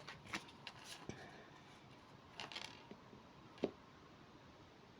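A few faint clicks and a brief rustle of tarot cards being handled and turned over on a table.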